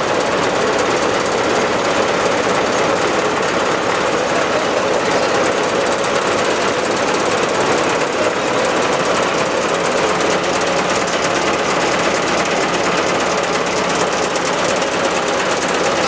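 Road roller's engine running steadily with a loud, fast rattle.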